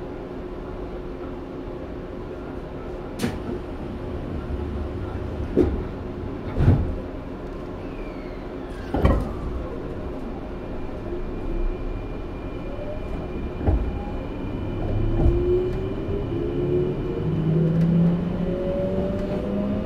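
Inside a Sanyo 5030 series train: a steady hum with several knocks and clunks, then the Fuji Electric IGBT VVVF inverter starts up, its motor tones climbing in pitch as the train pulls away and accelerates.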